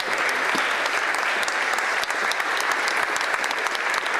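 Audience applauding: many hands clapping steadily, a dense continuous patter.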